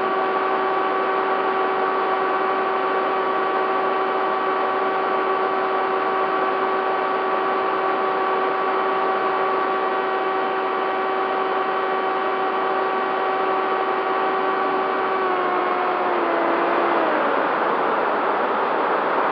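Bixler 3 model plane's electric pusher motor and propeller running at steady throttle with a whine over wind rush. About fifteen seconds in the pitch steps down and falls away as the throttle is backed off, leaving louder wind rush as the plane glides.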